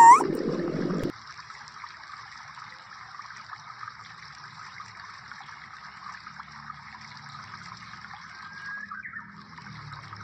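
Water simmering and trickling in an aluminium wok as boiled instant noodles are lifted out, a steady soft hiss. A louder low sound in the first second cuts off suddenly.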